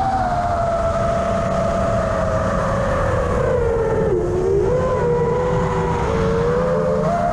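Brushless motors and propellers of an FPV quadcopter whining in flight, the pitch sinking slowly as the throttle eases, dipping lowest about four seconds in and rising again near the end, over a low rushing noise.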